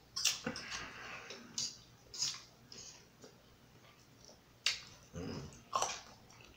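Close-miked eating sounds: chewing and mouth smacks on sausage and rice, with a few sharp clicks and scrapes of a plastic fork against the griddle tray.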